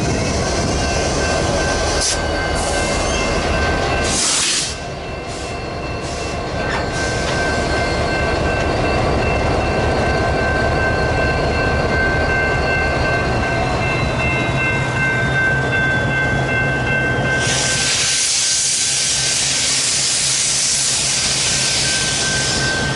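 BNSF freight train rolling on the rails, with steady high-pitched metallic squealing tones over the rumble, one of them sliding slowly lower. A loud rushing hiss comes in about three-quarters of the way through and runs on.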